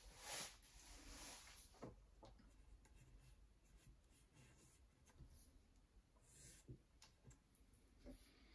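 Pencil sketching on sketchbook paper: faint, irregular scratching strokes of graphite on the page, with a few light taps.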